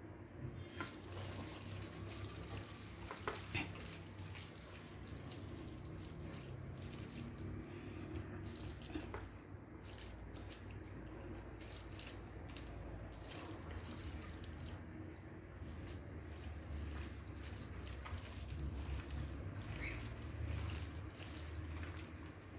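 Water sloshing and trickling with wet handling noises and a few light clicks, as seafood is worked in water in a sink or bowl.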